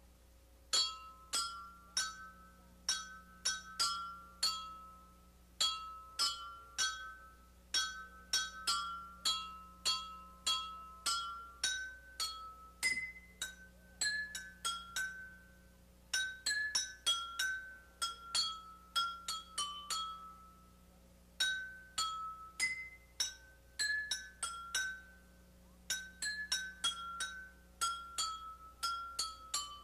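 A melody tapped out on tuned drinking glasses: single struck notes that ring clearly and fade, one to two a second, with a short pause a little past the middle.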